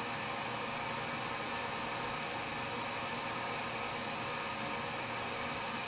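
Cheap vacuum cleaner running steadily, drawing air through a perforated MDF clamp bed that holds a board down by suction. It makes an even rushing noise with a thin, steady high whine.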